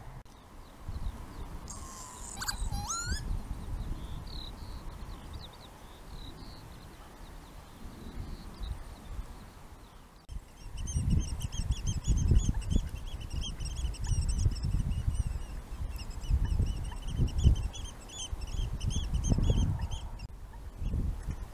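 Birds calling: a single gliding call a couple of seconds in, then from about halfway a long run of quick, high, repeated notes. Underneath is a low, uneven rumble, loudest in the second half.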